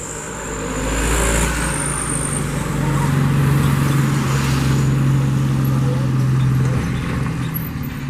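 Tourist bus engine running as the bus goes down a steep slope: a steady low drone that builds about a second in and eases off near the end.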